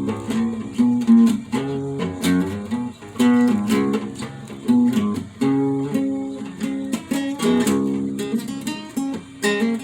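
A solo guitar played slowly, with picked notes and strummed chords that ring and fade one after another.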